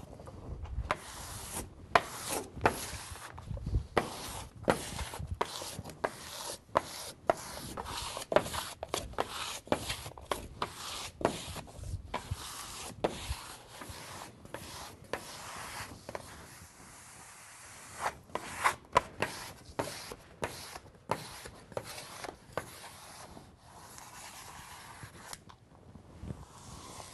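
A plastic smoothing tool being swept in quick, repeated strokes across Mylar-laminated vinyl wallcovering on a wall, each stroke a short rubbing scrape. There are about one to two strokes a second, with a brief lull about two-thirds of the way through.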